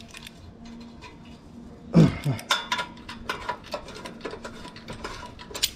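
Metal hand tools clinking and tapping on a motorcycle's rusted exhaust bolts as they are worked loose, with one louder knock about two seconds in.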